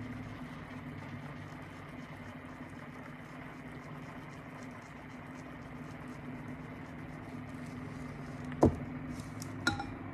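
Steady low machine hum under the faint rattle of fine glitter being shaken from its container over a tumbler. A sharp knock comes about three-quarters of the way through, and a lighter one about a second later.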